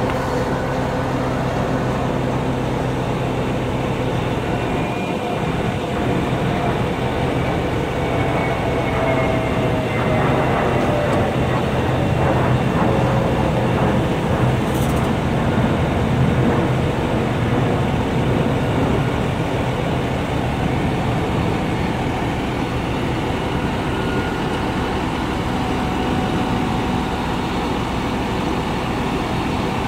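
Heavy diesel truck engine running steadily, with a faint whine that slides down in pitch about ten seconds in.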